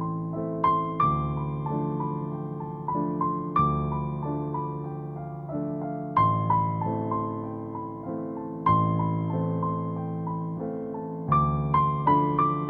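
Background piano music: a gentle melody of struck, fading notes over low chords that change every couple of seconds.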